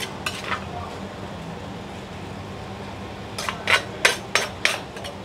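Som tum being pounded with a pestle in a mortar: a couple of knocks at the start, then, from a little past the middle, a run of sharp strikes about three a second.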